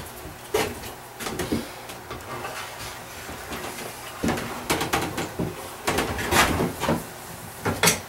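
A few sharp knocks of hand tools being picked up and set down on a workbench, then short scraping strokes along a freshly waxed ski's edge, clearing excess wax off the edges.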